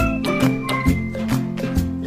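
Upbeat instrumental background music with a steady beat, a moving bass line and a bright melody.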